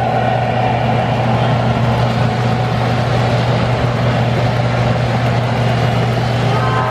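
O-scale three-rail model train cars rolling past on the track: a steady rumble of metal wheels on rail over the low diesel-engine hum from the MTH F40PH locomotive's sound system. Just before the end a model train horn starts to sound.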